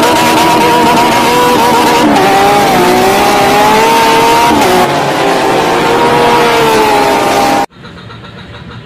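Race car engine running at high revs, its pitch stepping up and down between levels like gear changes, then cutting off abruptly near the end.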